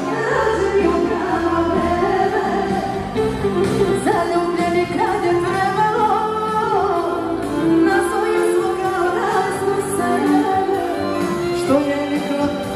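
Live band music: women singing into microphones over an electric keyboard.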